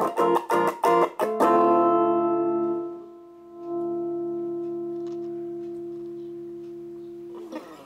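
Electric guitar played through a small homemade valve amplifier built around a single ECL82 tube, with a clean tone. A few quick strummed chords are followed by a last chord left ringing and fading slowly. The chord is muted with a short scrape of the strings near the end.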